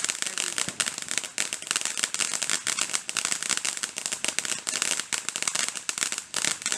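Consumer fireworks crackling: a dense, continuous run of rapid small pops and crackles with no pause.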